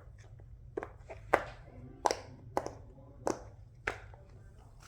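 Silicone pop-it fidget toys being handled, giving about six short sharp clicks a little over half a second apart.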